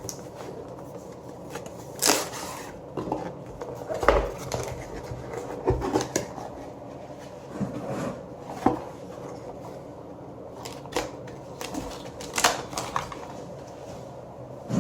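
Packaging of a boxed computer part being handled and unpacked: irregular rustles, taps and clicks of cardboard and plastic, with a few louder rustling bursts.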